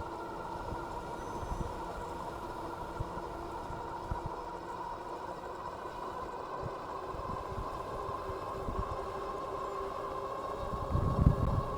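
Dual hub motors of a Philodo H8 all-wheel-drive e-bike whining steadily while it rides along, over a low rumble of tyres and wind. The low rumble swells louder near the end.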